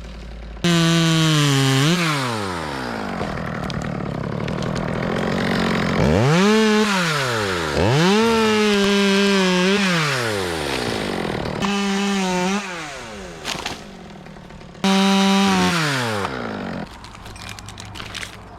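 A two-stroke chainsaw revved to full throttle in several bursts of one to four seconds each, with the pitch sagging and rising as it cuts wood. It drops back toward idle between bursts.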